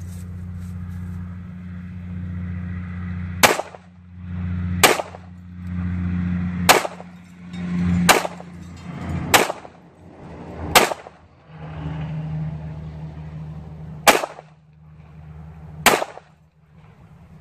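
Eight pistol shots from a CZ 83 in .380 ACP, fired singly about one and a half seconds apart, with a longer pause after the sixth, starting a few seconds in. A low steady hum runs underneath.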